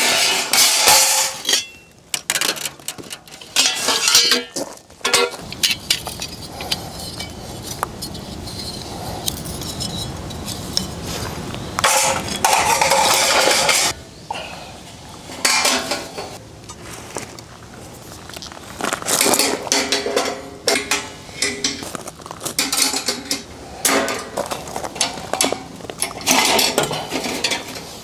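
Metal camping gear clinking and clattering as it is handled and set up, in irregular knocks and clinks with louder busy stretches about twelve seconds in and again near twenty.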